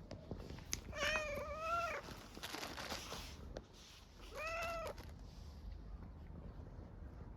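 A hungry street cat meowing for food twice: a long meow about a second in and a shorter one about halfway through, with a brief noisy rustle between them.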